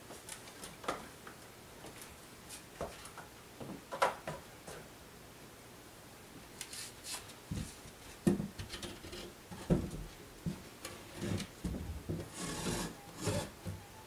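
Attic access hatch panel being pushed up out of its ceiling frame and slid aside, scraping and rubbing with several low thumps through the second half, after a few scattered light knocks and taps.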